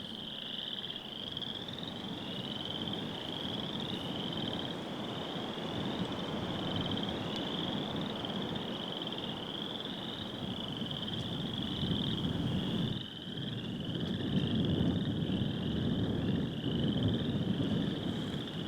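Frogs calling in chorus: a steady series of short, high, rising trills repeating about twice a second, over a low rumbling background noise.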